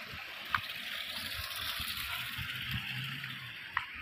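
Steady rush of rainwater running along a flooded lane, with low thumps scattered through it and a couple of short high chirps, one about half a second in and one near the end.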